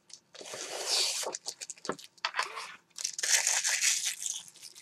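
Protective plastic film being peeled off an acetate sheet: a crackling, tearing rustle in two stretches, with small clicks of card and plastic being handled in between.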